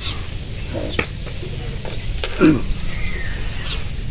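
A few light clicks of plastic bottle-cap game pieces moved on a paper-covered board, over a steady low rumble, with short high chirps and one brief voice sound about halfway.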